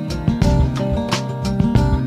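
Music: an instrumental track with a steady beat over a deep bass line.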